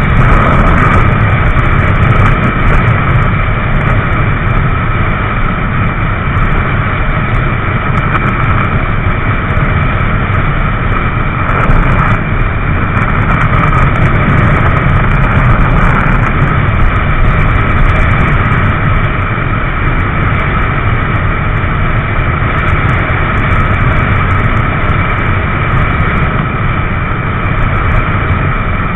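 Motorcycle riding at freeway speed: steady wind rush on the helmet microphone over the drone of the engine, loud and muddy throughout.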